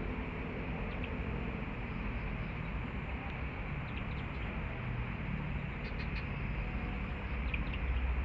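Steady outdoor hiss with a few faint, short high chirps from a bird scattered through it.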